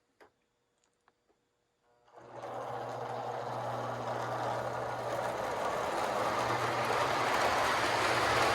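Near silence with a faint click. About two seconds in, a Lionel Santa Fe diesel O gauge locomotive starts moving forward on conventional power: its electric motor hums steadily and its wheels rumble on tubular track, growing slightly louder.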